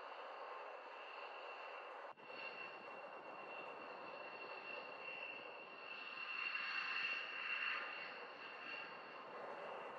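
Distant F-16 jet engine: a steady rushing noise with a high turbine whine, swelling between about six and eight seconds in. A momentary break in the sound about two seconds in.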